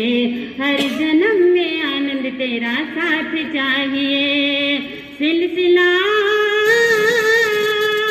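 A Jain nun singing solo, one woman's voice in ornamented, wavering melodic phrases. After a short breath about five seconds in, she holds a long note that climbs slightly.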